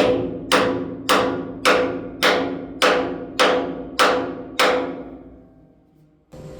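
Steady hammer blows, about two a second, on a steel tube plug being driven into a boiler tube, each strike leaving the metal ringing. The blows stop about four and a half seconds in and the ring dies away.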